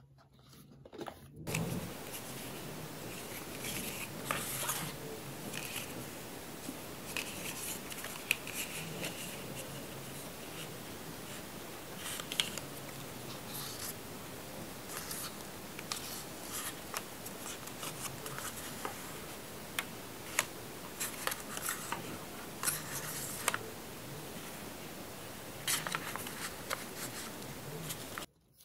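Cardboard and paper inserts of an iPhone box handled by hand: scraping and rubbing of card on card and on a wooden table, with scattered light clicks and taps.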